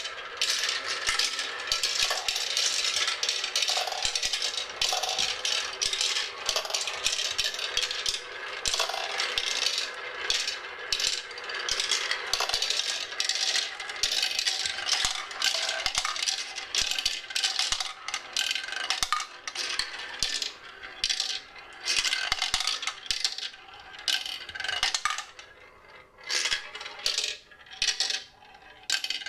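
Many marbles rolling and clattering down a staircase marble run: a dense, continuous rattle of clicks that thins to scattered separate clicks over the last few seconds.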